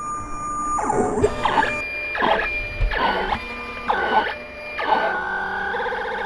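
Vinyl cutter cutting a decal: its stepper motors whine in quick rising and falling sweeps, about one a second, as the blade carriage and the rollers move the vinyl. Near the end the sweeps give way to a steadier warbling tone.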